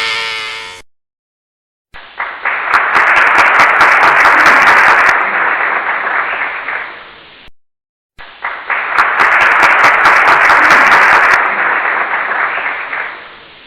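Applause sound effect: a crowd clapping, swelling and then fading out over about five seconds, played twice in a row with a short gap between.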